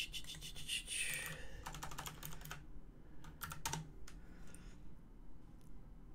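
Typing on a computer keyboard: quick runs of light key clicks that thin out to a few scattered taps after about four seconds.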